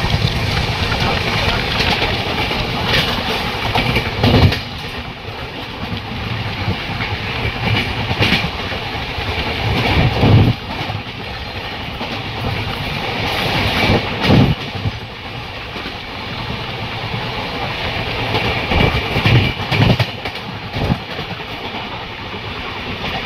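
Express passenger train running fast, heard from an open coach doorway: a steady rumble of wheels on rail and rushing air. Several short, loud clattering surges come through, about 4, 10, 14 and 19 seconds in.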